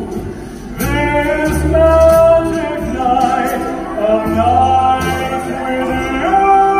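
Stage-show music: a male voice singing long held notes over instrumental accompaniment with a bass line.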